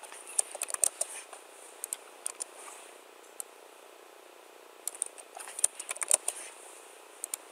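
Typing on a computer keyboard: quick bursts of key clicks at the start and again about five seconds in, with a few scattered clicks between and near the end.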